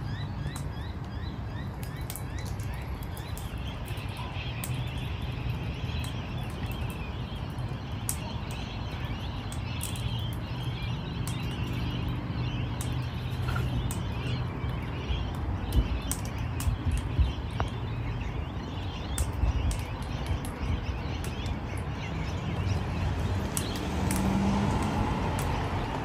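Faint bird chirping over a steady low rumble, with scattered small sharp clicks from a crimson rosella cracking seed in its beak.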